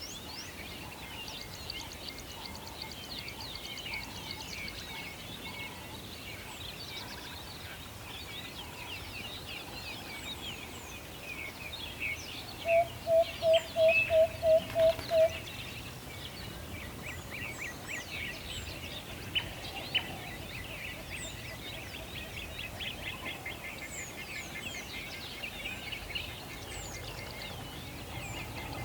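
A chorus of wild birds chirping continuously with many short high calls. About halfway through, one bird gives a loud run of about nine quick, evenly spaced low notes.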